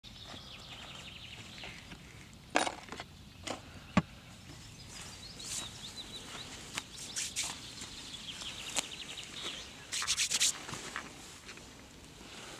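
Outdoor background with birds chirping, broken by handling noises: a few sharp knocks about two and a half and four seconds in, and a quick rattle of clicks about ten seconds in.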